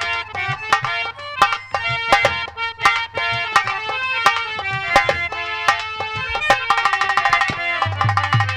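Nautanki folk-theatre instrumental music: rapid hand-drum strokes over a held, sustained melody line.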